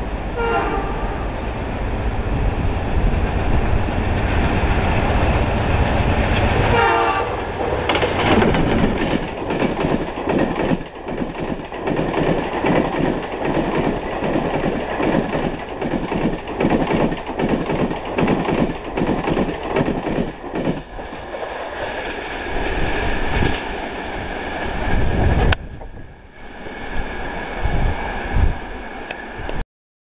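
WDM-3A diesel locomotive sounding its horn as it passes at speed over a heavy engine rumble: a blast at the start and another about seven seconds in, each falling in pitch. The Duranto's coaches then rush past with a fast, rhythmic clatter of wheels over the rail joints, which thins out near the end as the last coaches go by.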